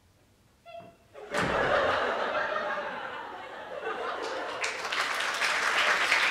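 A brief vocal cry, then a thump about a second in, followed by a theatre audience laughing, the laughter swelling again near the end.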